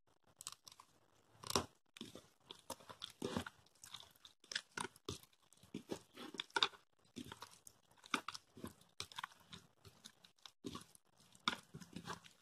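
A hand squeezing and mixing mashed roasted eggplant with chopped raw onion and coriander in a plastic bowl: faint, irregular small clicks and crackles, several a second.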